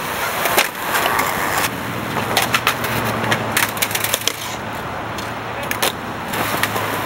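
Skateboards on a concrete ledge and ground: a board scraping along the ledge near the start, wheels rolling on concrete, and many sharp clacks of boards and tails hitting the ground.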